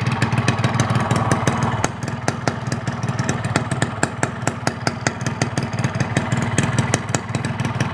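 Two-stroke motorcycle engine idling just after a cold start, while the engine is still cold. It runs steadily with a rapid, slightly uneven exhaust beat.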